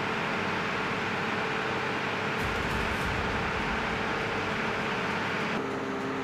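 Steady machine or air noise: an even hiss and rumble with a low steady hum, shifting slightly in tone near the end.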